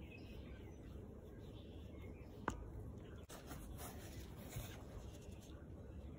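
Small brush rubbing against the edge of a leather handbag: faint scratchy strokes. A single sharp click about two and a half seconds in.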